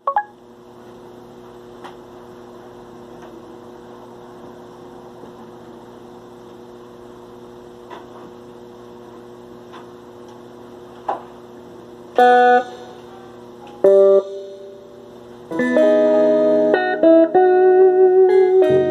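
Guitar music: a quiet sustained drone for about twelve seconds, then two short loud chords, then continuous guitar playing with quickly changing notes.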